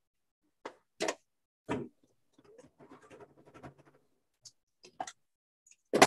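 Hands handling quilt pieces on a cutting mat: short rustles and taps, a patch of light crackling in the middle, and a sharper tap near the end.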